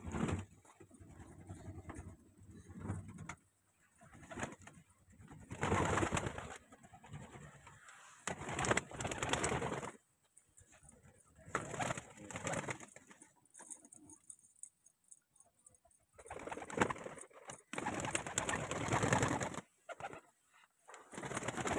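A flock of domestic fancy pigeons cooing in repeated bouts a second or two long, with a flutter of wings near the end.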